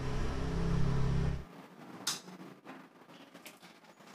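A steady low hum that cuts off abruptly about a second and a half in. It leaves quiet room tone with a few light knocks and rustles as a bag is handled.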